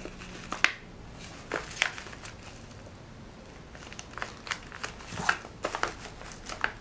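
Paper rustling and crinkling in short, scattered bursts as hands handle a folded paper bag and press a glued cardstock circle onto it. There is a quieter stretch in the middle and more handling near the end.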